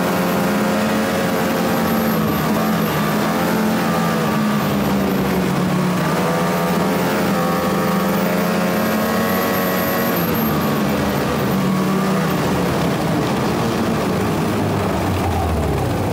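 Snowmobile engine running under throttle, its pitch rising and falling several times as the speed changes, then settling lower near the end.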